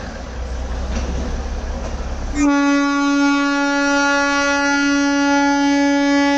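Rail vehicles rumbling past, then about two and a half seconds in a train horn sounds one long, steady, loud note that is still going at the end.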